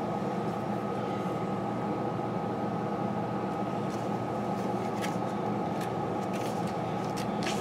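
Steady background hum of a running machine, like a fan or air conditioner, with a thin steady high tone over it. A few soft paper rustles as booklet pages are turned.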